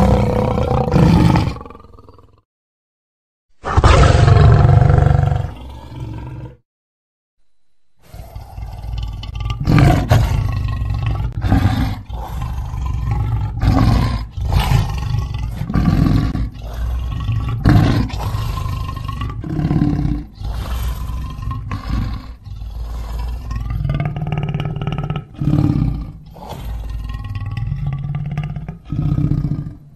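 Lion roaring: two separate roars in the first six seconds, then, after a short gap, a long series of low grunting roars about every two seconds.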